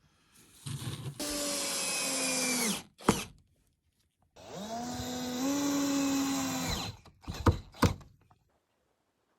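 Electric drill run twice, each time spinning up, holding speed for a second or two and winding down, the second run longer. There are a few short knocks between and after the runs.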